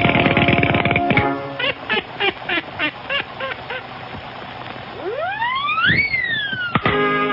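Old cartoon soundtrack: about a second of fast banjo strumming, then a run of short squeaky comic notes, about three a second. Near the end, a whistling tone glides steeply up and back down, cut off by a click.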